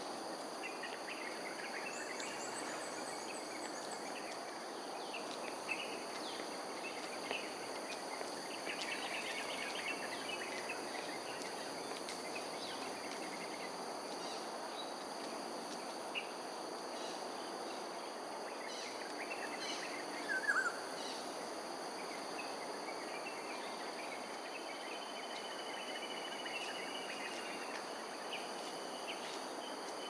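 Steady high-pitched insect drone with scattered short bird chirps over outdoor background noise; a brief falling bird call stands out about twenty seconds in, and a thin held whistle comes a few seconds later.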